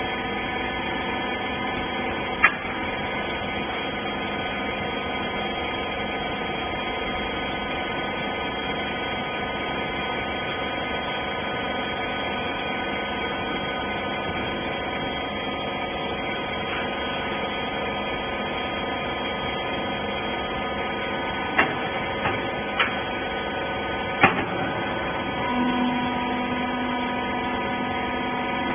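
Wiper rag baler running with a steady machine hum made of several fixed tones. A few sharp clicks or knocks come once early and then in a cluster near the end, just before a new, steadier tone joins the hum.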